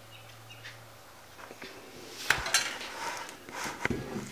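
Metal kitchen utensils clinking and knocking against steel bowls and dishes. It is faint for the first two seconds, then there are several sharp clicks and knocks.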